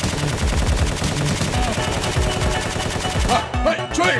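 Rapid automatic gunfire sound effects, a dense run of shots over low thuds. A little before the end the firing thins out and music comes in.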